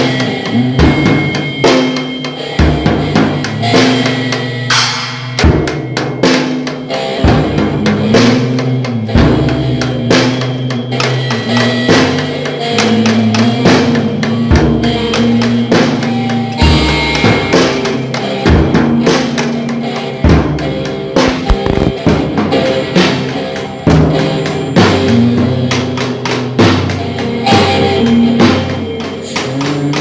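Music: a rock drum-kit beat at about 131 beats a minute, with kick, snare and rimshots, under sustained guitar notes.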